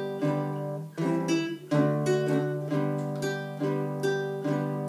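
Ukulele strummed chords in a steady rhythm, about two strums a second, with no singing.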